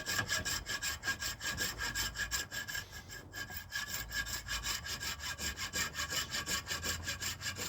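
Coping saw cutting through shed caribou antler in quick, even back-and-forth strokes.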